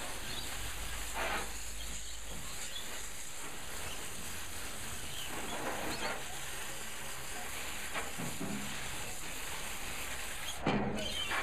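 Garden hose spray nozzle jetting water onto a cast iron barbecue burner and into a wheelbarrow of water: a steady hiss of spray with splashing. The jet is washing off rust loosened by a molasses-and-water soak.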